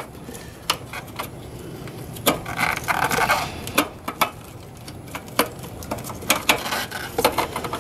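Scattered small plastic clicks and knocks as wiring-harness connectors are pried loose and worked through a hole in an ECU box with a screwdriver, with a short rubbing scrape about three seconds in.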